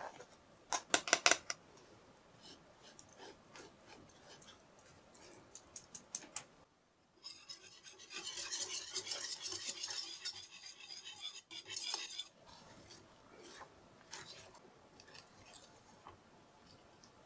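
A wire whisk beating cocoa into liquid in a stainless steel saucepan: a fast, steady rattle of the wires against the pan for about five seconds in the middle. Before it come a series of sharp clinks. After it, softer scraping and tapping from a silicone spatula stirring the chocolate mixture.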